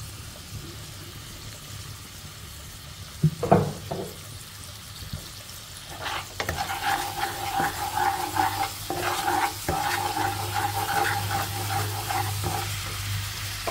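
Minced garlic and a dark sauce frying in oil in a nonstick wok, sizzling softly at first and then crackling louder from about six seconds in as a wooden spatula stirs them. A brief loud knock comes about three and a half seconds in.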